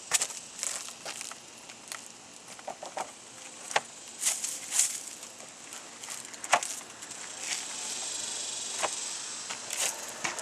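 Scattered clicks and gritty scrapes of someone moving across an asphalt shingle roof and handling the shingles, with a few brief scuffs.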